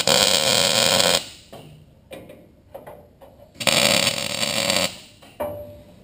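MIG welder laying two short tack welds on a steel crossmember and frame rail: two bursts of steady crackling sizzle, one at the start lasting about a second and another about three and a half seconds in, with quiet between.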